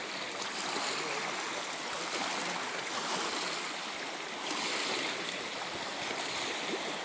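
Steady rushing wash of water: small waves on a choppy lake lapping against the rocky shore, swelling gently a few times.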